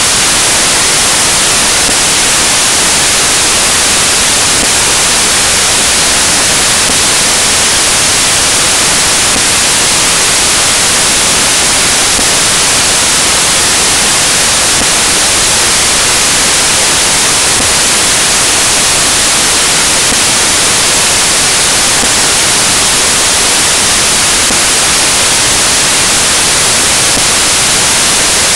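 Loud, steady static hiss like white noise, even and unchanging, with nothing else in it. It is a glitch in the recording, not a sound from the scene.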